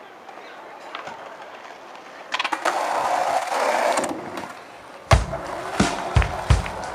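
Skateboard wheels rolling over asphalt, swelling for a couple of seconds in the middle. About five seconds in, music with a steady, heavy drum beat comes in.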